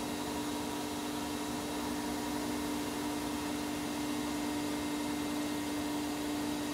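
CNC lathe running a turning cycle on a stainless steel shaft, spindle at 1500 rpm with coolant flowing: a steady machine hum with one constant low whine.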